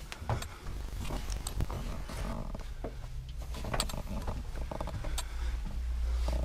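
Irregular clicks, scrapes and knocks over a steady low rumble: the handling noise and movement of someone carrying a camera through a rock tunnel.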